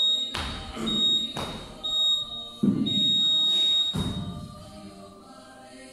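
Gym interval timer beeping a start countdown: three short high beeps about a second apart, then one longer beep that signals the start of the set.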